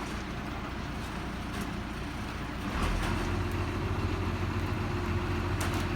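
A large engine running steadily, stepping up to a louder, deeper note about three seconds in.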